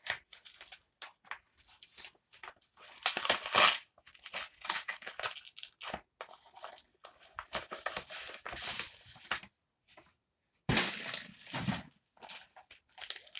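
A mailed parcel's packaging being torn open and handled: irregular crackling, tearing and rustling, loudest about three seconds in and again near the end.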